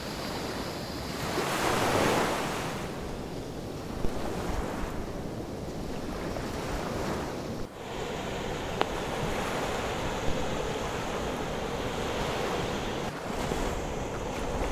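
Sea surf washing onto the shore, with wind on the microphone; a wave swells up louder about two seconds in.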